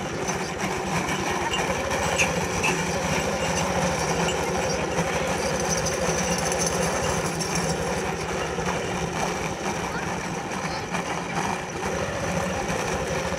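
Heavy round load dragged along a paved road by a pair of yoked bullocks, a steady grinding scrape with a low rumble.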